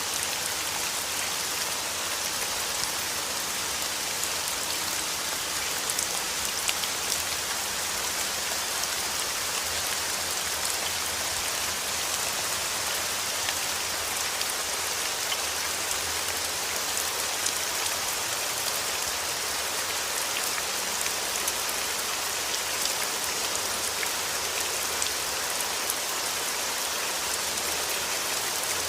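Steady rain falling on a surface: an even hiss dotted with many small drop ticks.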